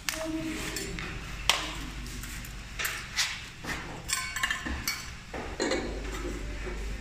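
Scattered clicks, knocks and clinks of tools and parts being handled: a cordless drill picked up and a bracket set against the door's side frame. No drill motor runs.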